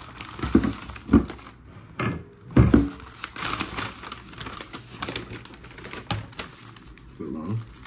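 Paper sandwich wrapper crinkling and rustling as a wrapped Subway sandwich is handled and opened, with several sharp knocks in the first three seconds and scattered clicks throughout.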